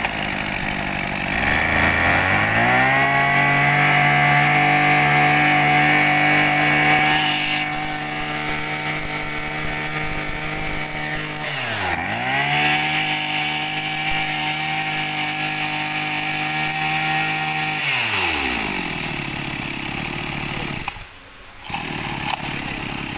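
Maruyama GKB2006 brush cutter's 26cc two-stroke engine being test-run: it rises from idle to a steady high speed at full throttle, dips once and picks up again about halfway, then drops back to idle near the end.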